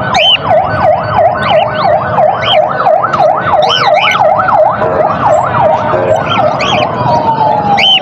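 A siren in a rapid yelp, its pitch going up and down about three times a second. Near the end it changes to one long falling tone as it winds down. Lovebirds chirp over it.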